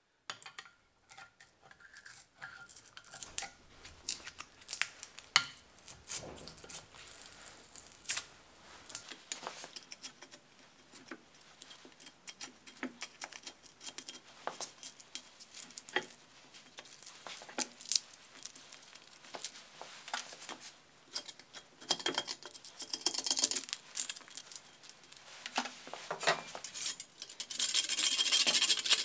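Steel hand-tool blades scraping and tapping over a wooden plug set in a porous millstone, working off squeezed-out glue, in scattered short scrapes and clicks. Near the end a steadier, louder rasping begins as a wide flat blade works across the plug.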